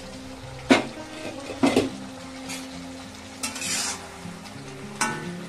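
Chicken curry sizzling in an iron kadai as it is stirred, the stirring utensil knocking sharply against the pan three times (twice about a second apart early, once near the end), with a burst of sizzle between.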